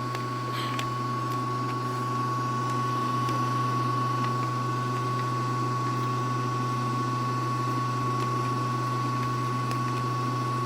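Casdon toy Henry vacuum cleaner's small electric motor running steadily, a low hum with a thin high whine.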